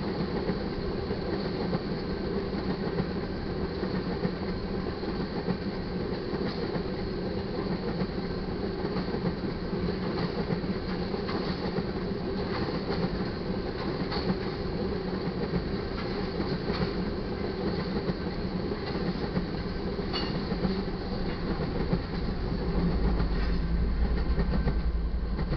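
Freight train of loaded crude oil tank cars rolling past, a steady rumble with wheel clickety-clack. Near the end a deeper, louder rumble swells.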